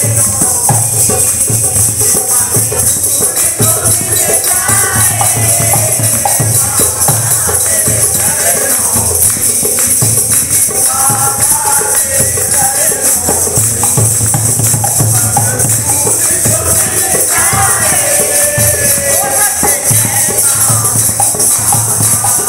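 Devotional bhajan sung by male voices, with a rope-laced dholak drum beating a steady rhythm and a constant jingling of hand percussion.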